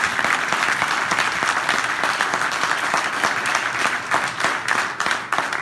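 Audience applauding: dense, sustained clapping that thins out near the end.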